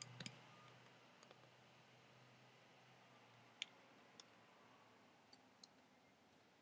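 Near silence, broken by a few faint, sharp clicks; the loudest comes about three and a half seconds in.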